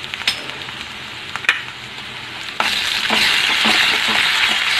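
Sliced onions and dried red chillies sizzling in hot oil in a kadai, with two sharp taps in the first second and a half. A little over halfway through the sizzling jumps louder and stays loud as ginger paste is stirred into the hot oil.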